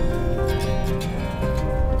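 Instrumental background music with held notes over the low rumble of a van driving on a gravel road, heard from inside the cab.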